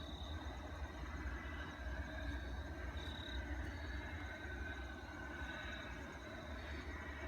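Night-time outdoor ambience: a steady low rumble under high, pulsing insect chirps, cricket-like.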